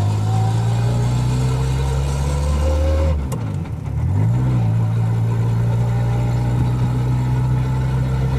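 Turbocharged VW Gol engine heard from inside the cabin, pulling with its note climbing slowly, a faint whine rising with it. About three seconds in there is a click and the engine note dips for about a second, then picks back up and runs steadily.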